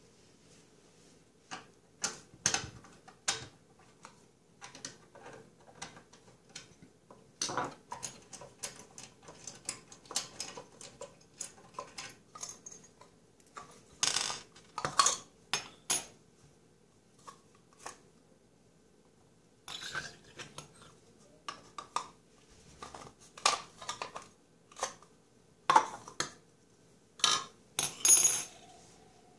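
Small metal and plastic parts (screws, a metal clamp ring, a screwdriver and pipe fittings) being handled and set down on a granite countertop: irregular clinks and clacks, with a pause of a couple of seconds past the middle.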